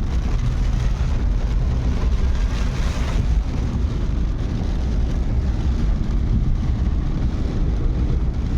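Car driving along a road: a steady low rumble of engine and tyre noise, heard from inside the cabin.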